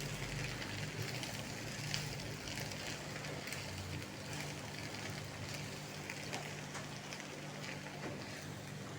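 Food sizzling and crackling in hot oil in a frying pan, with a steady low hum underneath.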